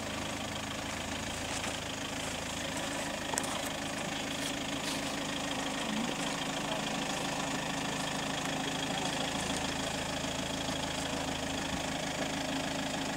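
Toyota Prado 150's engine running steadily at low revs as the four-wheel drive crawls through deep ruts, with a few faint knocks about three and a half and five seconds in.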